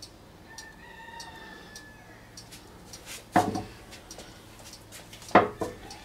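Two sharp, loud knocks about two seconds apart, over a clock's soft steady ticking; a faint drawn-out call sounds briefly near the start.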